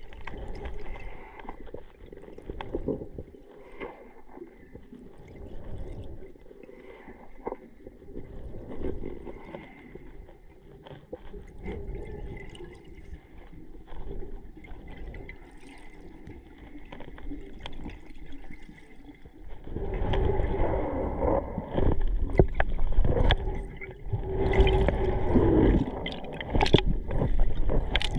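Underwater sound on a diving camera: muffled water moving and gurgling around the housing, with scattered small clicks. From about two-thirds of the way through it grows much louder, with bubbling and water churning as the camera nears the surface.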